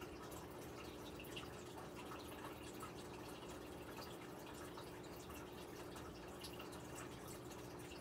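Faint aquarium water sounds: small drips and plinks of water, as from bubbles breaking at the surface, over a low steady hum.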